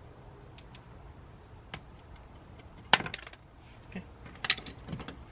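Sharp metallic clinks of small metal parts and hand tools at a car door's speaker mount. There is one loud clink about three seconds in, then several lighter ones; no drill is running.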